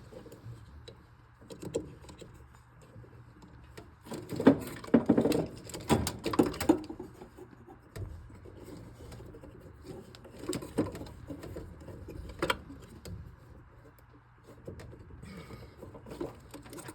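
Irregular small clicks and rustles of hands handling a furnace pressure switch and its wire connectors, busiest a few seconds in, with one sharp click near the end, over a faint steady low hum.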